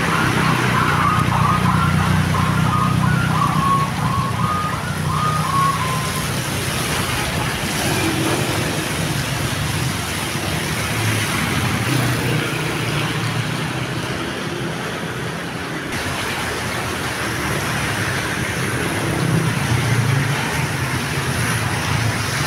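A bus's Basuri telolet horn plays a quick tune of short notes, stopping about six seconds in. Underneath, the bus engine runs steadily along with road traffic noise for the rest of the time.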